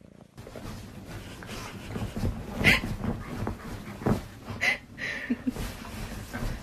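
A dog making a few short, high whimpers and yips amid the rustling of bedding.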